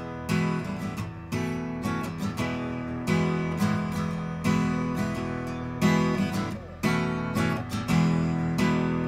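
Solo guitar improvisation, with strummed and plucked chords ringing out and a new chord struck about once a second.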